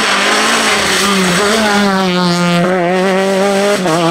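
Peugeot 208 R2 rally car's engine at high revs, under hard acceleration as the car passes on a gravel road. The engine note dips briefly twice, about two-thirds in and near the end, as the throttle is lifted or a gear changes.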